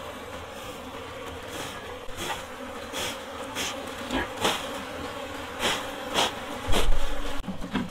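Honey bees buzzing steadily around a hollow-log hive as honeycomb is pulled out of it, with brief rustles and clicks of the comb being handled and a louder low thump near the end.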